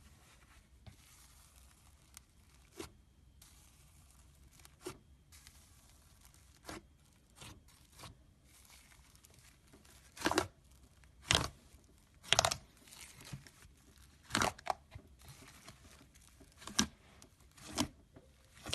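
Slime being handled by hand: quiet sticky handling noise with short sharp snaps and pops, the louder ones coming in the second half, about six of them.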